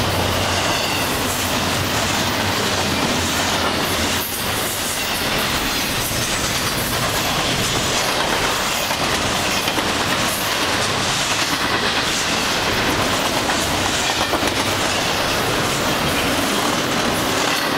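Double-stack intermodal container well cars of a long CN freight train rolling past at close range. Steel wheels on the rails make a steady, loud, unbroken rolling noise.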